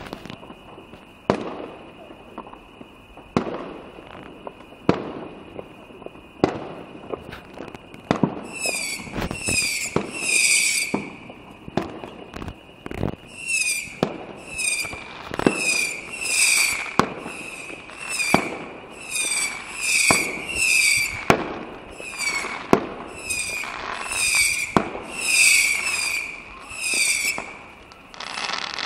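Fireworks going off: sharp bangs every second or two, then from about eight seconds in a fast string of short whistles, roughly one every 0.7 seconds, with a short pause in the middle, as screamer (whistling) fireworks fire shot after shot among more bangs.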